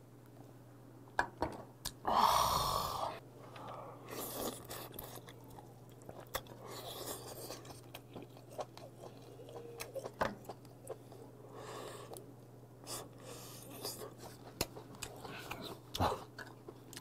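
Close-miked chewing of steamed king crab leg meat: wet mouth sounds and smacking clicks, with a loud breathy burst about two seconds in after a shot of makgeolli.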